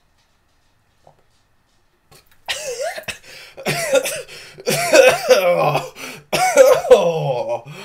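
A man coughing and hacking in four loud fits, starting about two and a half seconds in, as the saline from a neti pot nasal rinse runs through his nose and throat.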